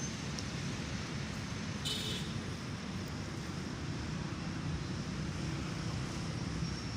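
Steady low rumble of road traffic, with a brief high-pitched sound about two seconds in.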